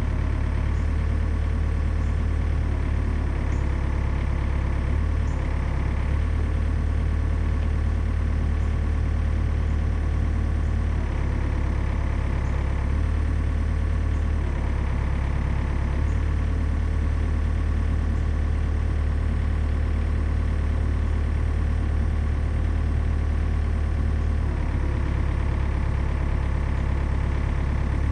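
Komatsu PC40 mini excavator's diesel engine running steadily, its note shifting slightly a few times as the machine works.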